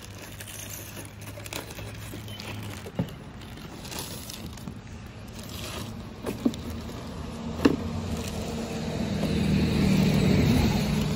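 Plastic water bottles being pulled from a shrink-wrapped case and set down on a table, with crinkling and a few sharp knocks. Under it a low vehicle engine rumble swells and is loudest near the end, as a car passes.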